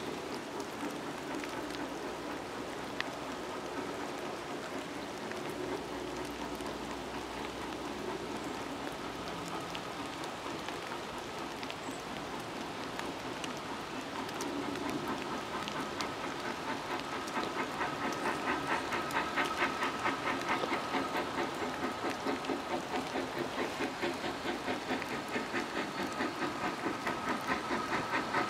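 Steam locomotive approaching with a train under steam, over a steady hiss of rain. Through the second half its exhaust beats come through as an even, rhythmic chuffing that grows steadily louder as it nears.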